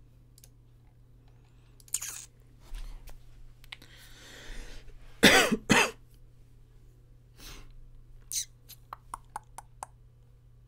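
A man coughing twice in quick succession, the loudest sounds here, with softer breaths and sniffs around them. A quick run of small sharp clicks follows near the end.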